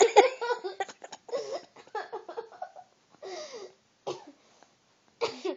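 Human vocal noises in several short bouts with silent gaps between them, laughing and coughing, loudest in the first second.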